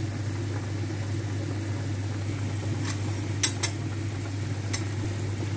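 Broccoli cooking in a frying pan over a steady low hum, with a few sharp crackles between about three and five seconds in.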